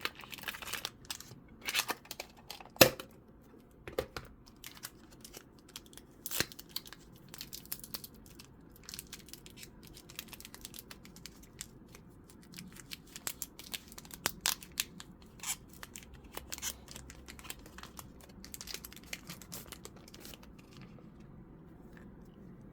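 Pokémon trading cards and a foil booster pack being handled: a run of small crinkles, taps and card slides, with one sharper snap a little under three seconds in.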